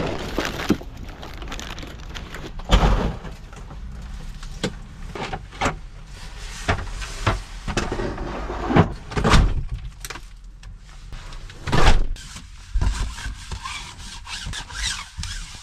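Irregular knocks, thumps and rustling of belongings being handled and packed inside a van, with a steady low hum underneath; the loudest thumps come about three seconds in and again near twelve seconds.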